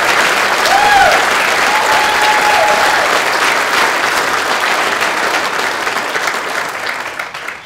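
Crowd applauding loudly, dying away near the end.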